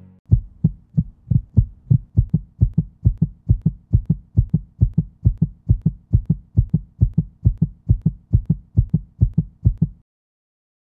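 Heartbeat sound effect: a steady series of low, even thumps, about two and a half a second, that cuts off suddenly near the end.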